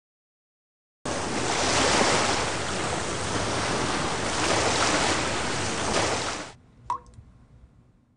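Rushing, splashing water that starts suddenly about a second in and cuts off sharply at about six and a half seconds, followed by a single short water-drop plink.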